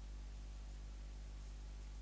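Steady low electrical hum with an even hiss, unchanging throughout, with no distinct sound from the animals.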